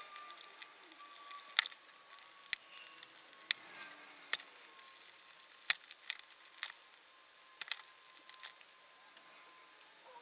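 Scattered faint clicks and taps of small hand tools working on a hoverboard controller board, about a dozen at uneven intervals, over a faint steady high whine.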